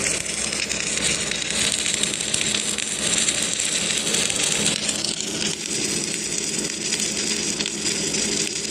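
Automatic arc welding machine running a weld after repair: the arc gives a steady crackling hiss over a constant low hum from the welding equipment.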